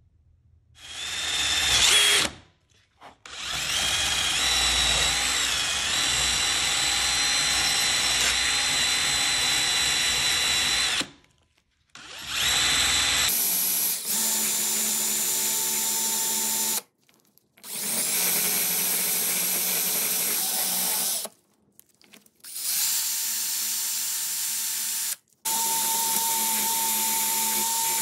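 Brass wire cup brush spinning on a power tool, scrubbing old finish and grime off a metal bottle opener pressed against it: a steady whir. It comes in several stretches with abrupt cuts between them, the first spinning up about a second in.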